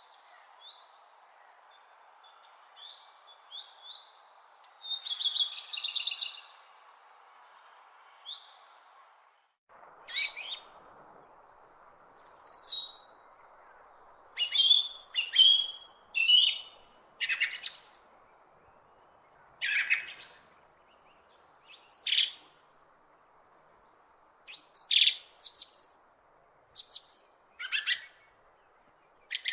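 Wild birds singing: faint scattered chirps at first, then, about ten seconds in, louder song phrases of quick downward-sweeping notes, one every second or two, over a steady soft hiss.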